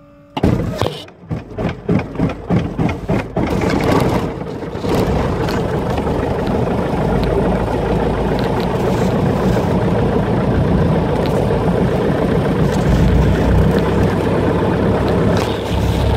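Light aircraft's piston engine being started: uneven, quickening firing pulses for the first few seconds. It catches about four seconds in and settles into a steady run with the propeller turning.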